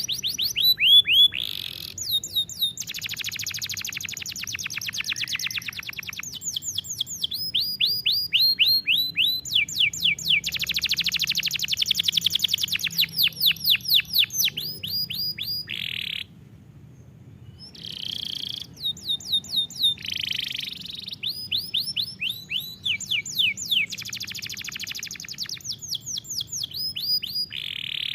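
Domestic canary singing: phrases of rapid repeated notes that sweep downward in pitch, alternating with very fast buzzy trills. There is a break of about a second a little past halfway.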